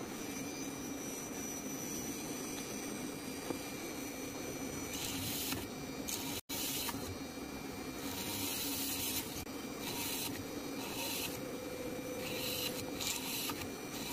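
Small DC-motor PCB drill with a brass chuck running at a steady hum, with short bursts of high hiss again and again as the bit bores holes through the copper-clad circuit board. The sound cuts out for an instant about six seconds in.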